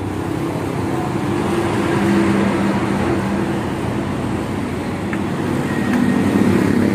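A motor vehicle's engine running amid road traffic noise, with a low hum that shifts in pitch and grows gradually louder.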